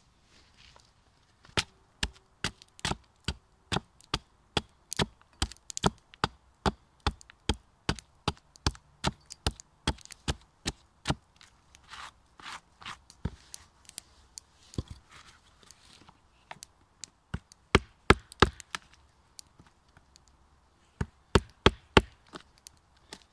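Repeated sharp knocks of a blade chopping and being batoned into a rotten pine log. They come about two a second for the first ten seconds or so, then slower and in small clusters.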